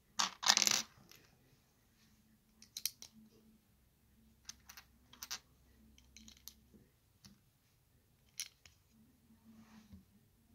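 Plastic LEGO bricks clattering and clicking as they are handled and pressed together. A loud rattle of pieces comes in the first second, then scattered light clicks and short clusters of clicks.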